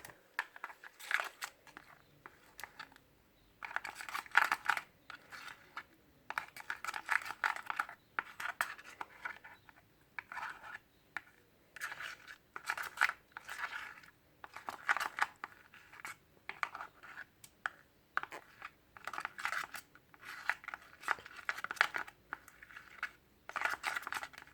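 Glue, soap and shaving-foam slime mixture being stirred with a utensil in a container: scraping and crackling strokes in irregular bursts every second or two.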